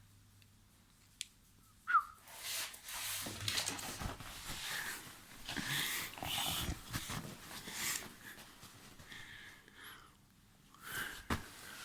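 A dog breathing and snuffling close by, with scuffling movement during play, and a short rising squeak about two seconds in and another near the end.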